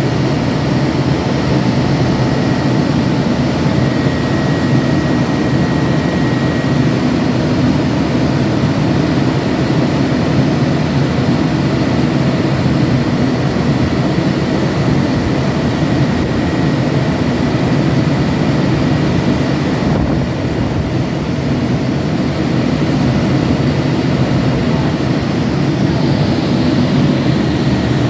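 Cummins QSX15 15-litre inline-six diesel engine of a 550 kVA generator set running at a steady, loud drone.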